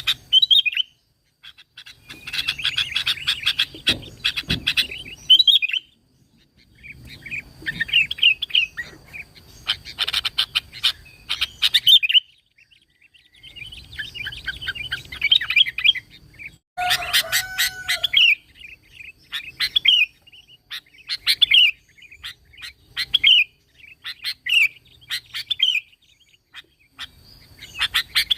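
Sooty-headed bulbul (kutilang) singing in repeated bursts of fast chattering notes, each burst ending in a short curving phrase, with brief pauses between bursts. One lower whistled note comes about two-thirds of the way in.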